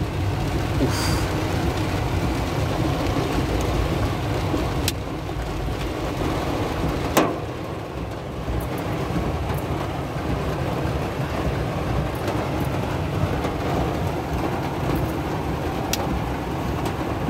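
Hail and heavy rain drumming steadily on a car's roof and windshield, heard from inside the cabin, with a few sharp hailstone knocks, the loudest about seven seconds in.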